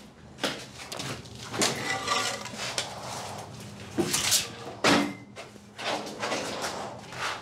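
Irregular knocks and clatter of wooden boards, cardboard and debris being handled and set down on a bare concrete floor, with a scraping stretch about two seconds in.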